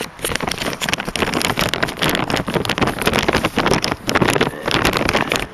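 Loud, rough crackling rustle of handling and wind on the camera's microphone, with a few brief dips.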